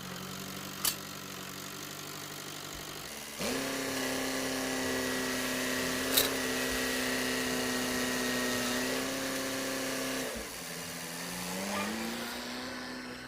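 A small engine running steadily. It speeds up about three and a half seconds in and holds a higher, steady pitch, drops back about ten seconds in, then rises again near the end. Two sharp clicks, one near the start and one in the middle.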